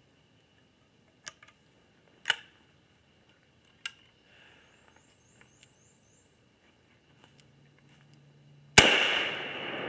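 Three sharp clicks, the middle one the loudest, then about nine seconds in a single loud shot from a Magtech 199 single-shot 20-gauge shotgun, its report echoing and fading slowly.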